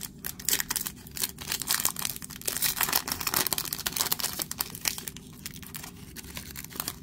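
Foil wrapper of a Sage football autograph trading-card pack being torn open and crinkled by hand: a dense run of sharp, irregular crackles that thins out near the end.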